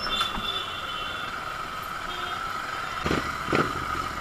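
Royal Enfield Continental GT 650's parallel-twin engine running at low speed in slow stop-and-go street traffic, with two short thumps about three seconds in.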